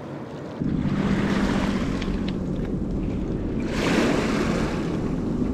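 Wind buffeting the microphone with river waves washing against a rocky bank: a steady rumbling noise that gets louder about half a second in and swells once near four seconds.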